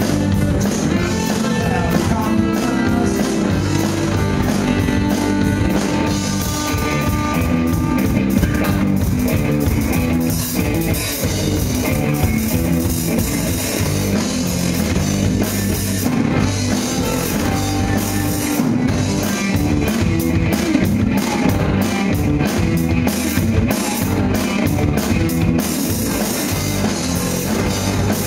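Live rock band playing: electric guitars, bass guitar and drum kit, with a steady driving beat.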